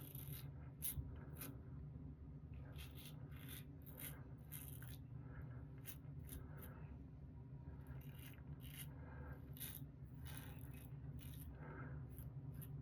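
Alpha Latherflo safety razor blade cutting through lathered stubble under the nose: a faint, irregular series of short, quick scraping strokes.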